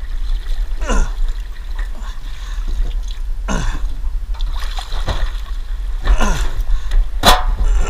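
Water splashing and sloshing as a heavy satellite dish is dragged up out of the water, in several separate surges a second or two apart.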